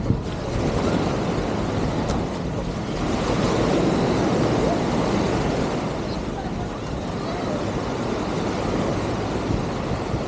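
Surf washing up on the beach, with wind buffeting the microphone; the wash swells for a few seconds about three seconds in.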